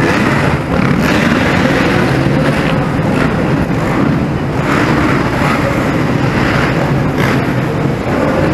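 Motocross bikes racing round an indoor supercross track, their engines revving up and down, in a large hall.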